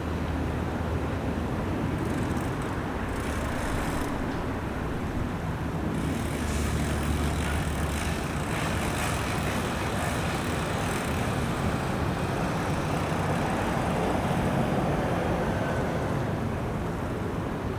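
Engines running at a low, steady rumble, with a slight rise in level around the middle, over outdoor background noise.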